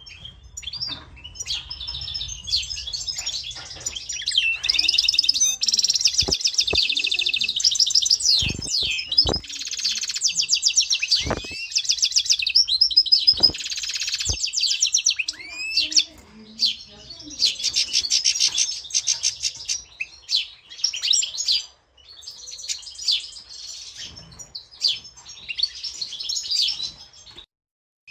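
European goldfinch singing: long runs of rapid twittering and tinkling trills, broken by a few short pauses.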